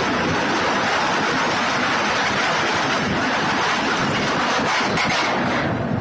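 Seawater breaking over a ship's deck in heavy seas: a steady loud rush of spray and water, with wind on the microphone, easing off just before the end.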